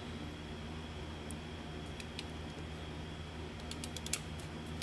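Hand crimping tool squeezing a spade connector onto a wire: a few faint clicks, then a quick run of small clicks near the end ending in a sharper click as the crimp closes, over a steady low hum.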